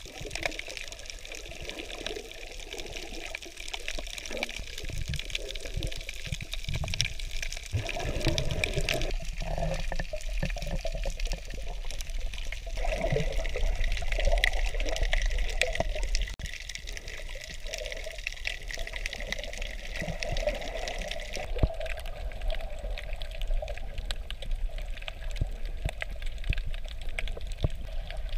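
Underwater sound picked up by a snorkeler's camera: a steady wash of moving water with bubbling and many scattered sharp clicks. The sound turns duller about three-quarters of the way through.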